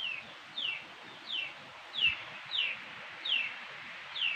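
A young animal's repeated high-pitched cries, each a short call falling in pitch, about seven in a row at a steady pace of a little over one a second.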